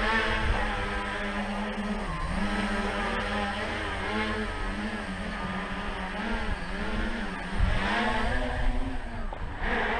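Tricopter's three brushless motors and propellers buzzing in low hover flight, the pitch rising and falling continually as the throttle is corrected.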